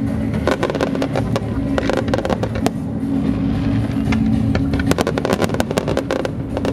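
Fireworks display: many sharp bangs and crackles of aerial shells bursting in quick succession over a continuous low rumble, with a steady low drone underneath.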